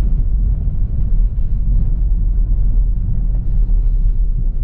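Honda Civic Reborn heard from inside the cabin while driving: a steady low rumble of road and tyre noise, with faint scattered light ticks.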